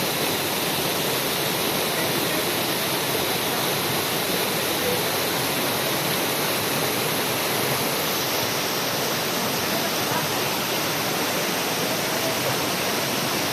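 Waterfall rushing steadily: a dense, even wash of falling water with no breaks.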